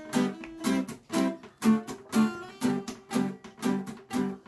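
Acoustic guitar strummed in a steady rhythm, about two strokes a second.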